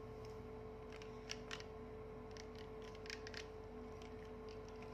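Light plastic clicks and taps as hands handle a plastic lollipop toy, a sharp pair about a second in and a few more around three seconds, over a steady faint hum.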